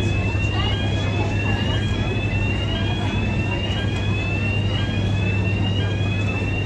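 Repeating warning alarm on the Highspeed 7 fast ferry, a short rising tone about once a second, sounding while the hatch opens for passengers to disembark. A steady low machinery hum runs under it.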